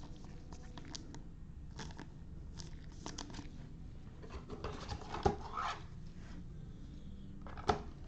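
Baseball trading cards being handled: cards sliding and flicking against each other, with light rustling and taps. A busier rustle comes a little past the middle, and two sharper taps come about five seconds in and near the end.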